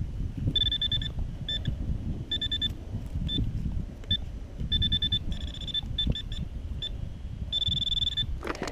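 Metal detector beeping on a target in a dig hole: about fifteen short, irregular high-pitched beeps, the longest near the end, over low handling rumble. The signal keeps shifting, which she suspects may come from the root itself.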